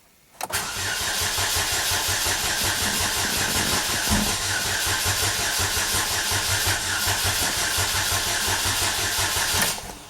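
2007 Chevy Cobalt's 2.2 L Ecotec four-cylinder engine cranking on the starter for about nine seconds, making some attempt to fire but not starting. This is the crank-no-start that the owner traced to a corrupted fuel trim setting.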